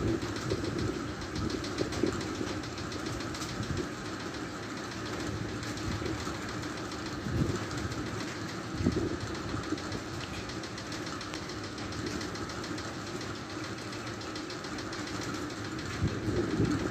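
A steady low droning rumble with brief swells partway through and a louder rise near the end. It is presented as a terrible sound coming from the sky.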